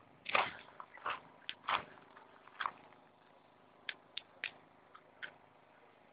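Footsteps crunching on broken brick and rubble: a string of short, irregular crunches, closer together in the first few seconds and fainter, sparser clicks later.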